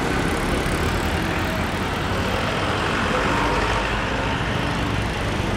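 Steady road traffic: cars, motorbikes and auto-rickshaws running along a busy city road.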